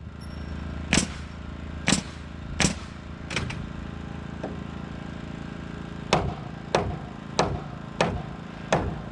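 Hammer blows in two runs of four or five strikes each, about two-thirds of a second apart, over a steady engine hum.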